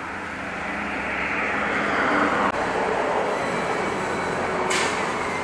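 A road vehicle passing, its engine and tyre noise swelling to a peak about two seconds in and then easing, with a short sharp hiss near the end.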